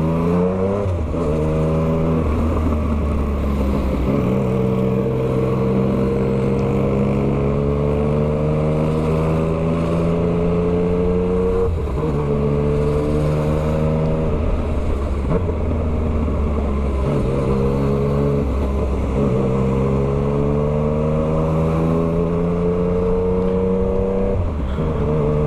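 2023 Yamaha MT-09's 890 cc crossplane inline-three running through an Atalla full 3-into-1 straight-pipe exhaust with no silencer, under way. The engine pitch climbs slowly in each gear and drops back at each upshift, several times over.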